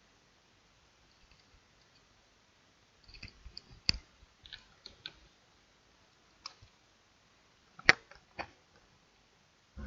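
Scattered clicks of a computer mouse and keyboard, in two bunches, with the sharpest clicks about four and eight seconds in.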